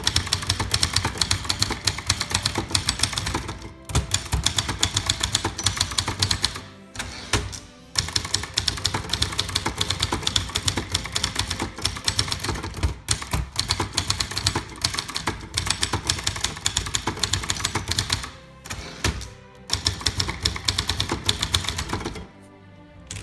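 Typing on a 1963 Brother Valiant manual portable typewriter: fast runs of keystrokes and typebar strikes, broken by a few short pauses. It is quieter near the end.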